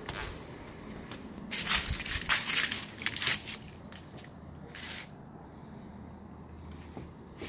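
Footsteps crunching dry fallen leaves: a quick run of crackling crunches, then one more a little later.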